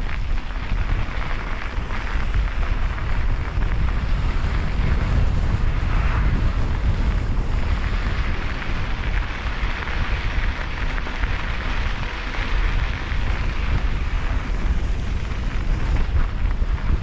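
Wind buffeting the microphone on a moving mountain bike, a steady low rumble, over the hiss and crunch of knobby tyres rolling on a gravelly dirt trail.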